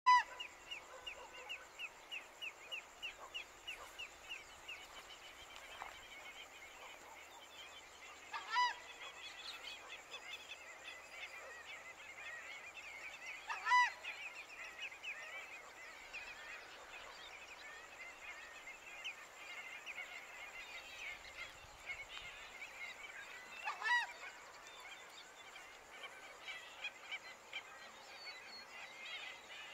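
Southern screamers giving loud honking calls, four times spaced several seconds apart, over a steady run of short, high chirps from other birds.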